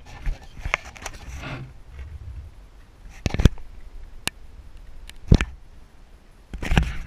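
Handling noise on an action camera: rubbing, then three sharp knocks about a second apart, as the camera and the drone it is on are held by hand. There is no motor hum.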